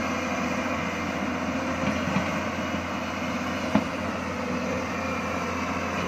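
Hyundai crawler excavator's diesel engine running steadily as the machine digs with its bucket, with a short knock a little past two seconds in and a sharper one nearly four seconds in.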